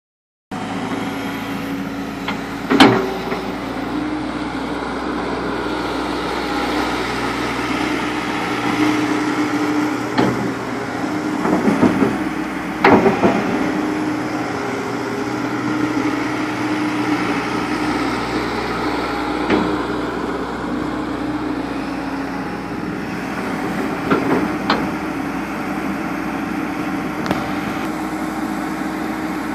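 Cat 312BL hydraulic excavator's diesel engine running steadily. A few sharp knocks sound over it, the loudest about three seconds in and again around twelve to thirteen seconds in.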